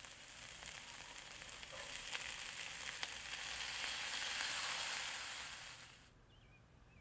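Caramelised onions sizzling in a frying pan as yellow split peas are added. The sizzle swells to its loudest about four to five seconds in, then cuts off abruptly about six seconds in.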